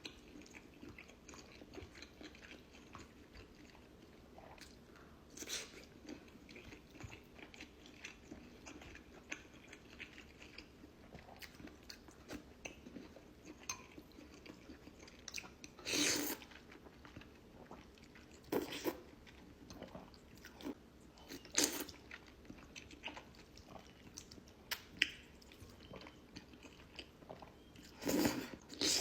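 A person eating noodles and a hot dog close to the microphone, with quiet chewing and biting throughout. Several louder, sharp sounds stand out about 5, 16, 18, 21 and 28 seconds in.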